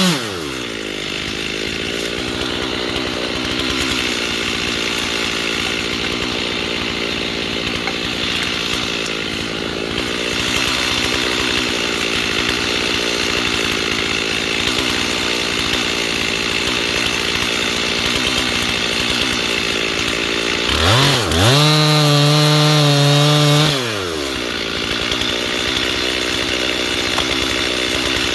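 Two-stroke chainsaw cutting into a tree trunk, the engine running lower under load in the cut. About 21 seconds in it revs freely at a high pitch for some three seconds, then drops back into the cut.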